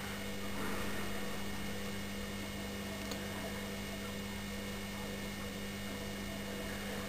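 Steady low electrical hum with a faint hiss behind it.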